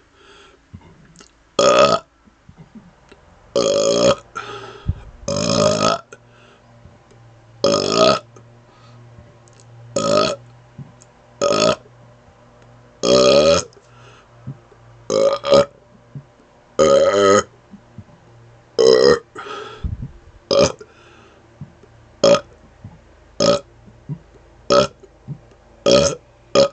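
A man burping over and over, one burp every second or two with only a short breath between, about seventeen in all. The later burps are shorter and come more evenly, about one a second.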